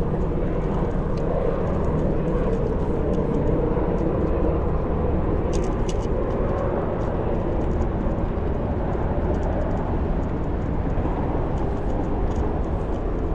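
Steady wind and road rumble from riding a bicycle, mixed with the noise of car traffic on the bridge overhead. A few light clicks come around the middle.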